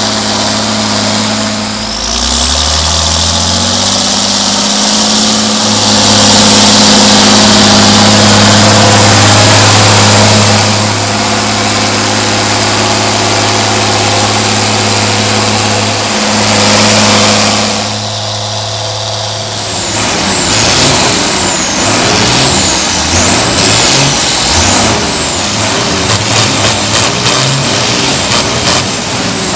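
John Deere 4255 tractor's six-cylinder turbo diesel working under load, its pitch rising about two seconds in as it speeds up, with a turbo whistle over the engine note. A little before the end it gives way to several Fiat tractor diesels revved up and down over and over, their high whine rising and falling about once a second.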